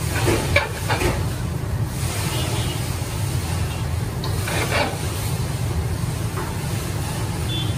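A large metal spoon scrapes and digs through freshly steamed Hyderabadi chicken dum biryani in a big pot, with a few scraping strokes, the clearest near the start and about midway. A steady low rumble runs underneath.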